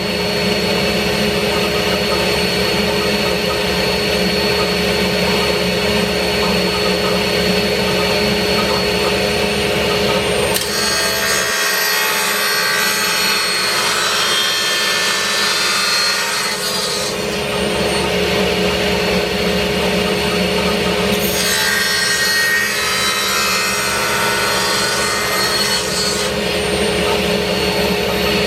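Table saw running steadily with a freshly washed blade, cleaned of resin build-up. It makes two cuts through wood, one starting about ten seconds in and lasting some six seconds, the other about twenty-one seconds in and lasting some five seconds.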